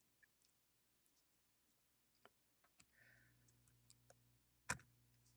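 Near silence with scattered faint clicks and ticks from a soldering iron's desoldering tip working on a circuit board's surface-mount parts, and one sharper click a little before the end.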